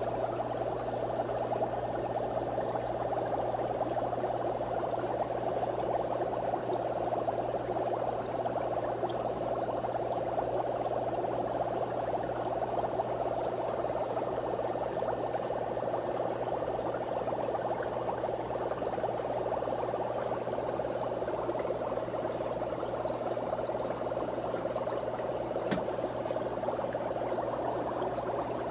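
Aquarium air pump humming steadily, with the continuous bubbling of air-driven sponge filters in the fish tanks.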